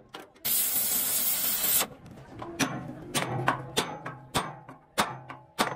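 A gas torch's loud hissing rush for over a second, then about seven sharp metal hammer strikes, roughly two a second, on a rivet set: a red-hot rivet being hand-set into a steel truck chassis rail.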